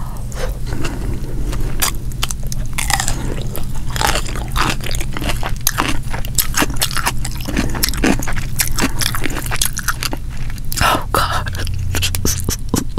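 Close-miked eating: crisp biting and chewing of cucumber and fried striped bass, with dense, irregular crunches and wet mouth clicks. A steady low hum runs underneath.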